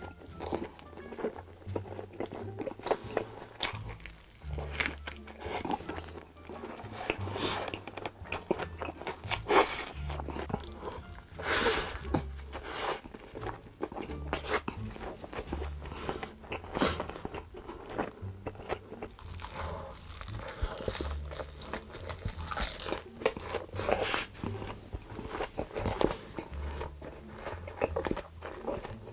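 Crunching bites and chewing of fast food, burgers, chicken nuggets and crispy fried chicken, close to the microphone. Under it runs background music with a low bass line.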